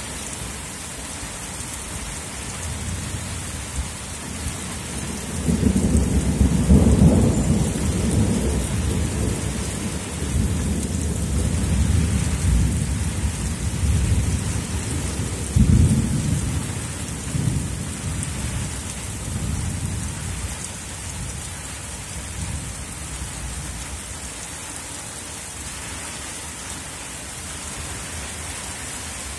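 Heavy rain falling steadily with thunder rumbling. A long rumble builds about five seconds in and peaks a couple of seconds later, a sharper clap comes about halfway through, and smaller rumbles fade out in the second half.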